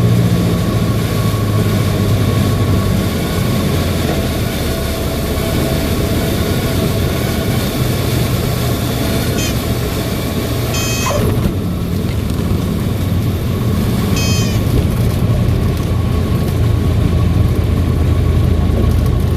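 Cessna 152's four-cylinder Lycoming engine running steadily with a low hum. Three short high chirps sound in the middle, one of them sliding down in pitch.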